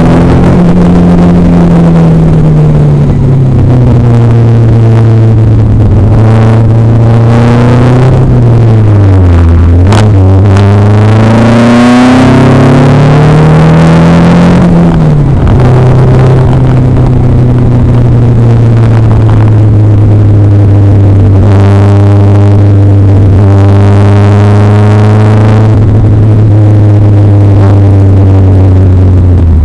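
Fisher Fury kit car's engine heard loud from on board in the open cockpit while lapping: the revs fall sharply about ten seconds in and climb again, drop once more at a gear change a few seconds later, then hold nearly steady for the rest.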